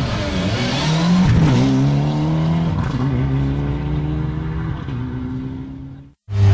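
Rally car engine running at high revs, its pitch rising and dipping about a second in, then held steady before fading out near the end. After a brief gap, a second, pulsing engine sound cuts in abruptly.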